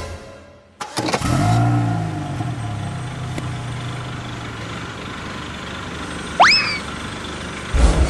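Bulldozer engine starting about a second in, revving briefly and then settling into a steady running rumble. About six seconds in, a quick rising whistle-like sweep.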